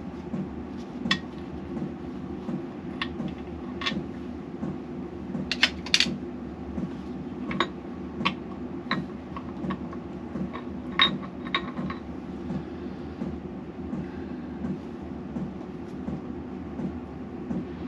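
Metal parts of a Triumph T90 motorcycle engine and hand tools clinking and tapping as they are handled and set down, about fifteen sharp clinks scattered through, the loudest about six seconds in and again near eleven seconds. A steady low hum runs underneath.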